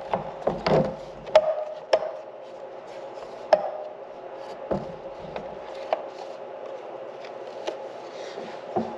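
Scattered sharp clicks and knocks, about nine in all at uneven spacing, from parts being handled on a corn planter's row unit, over a steady hum.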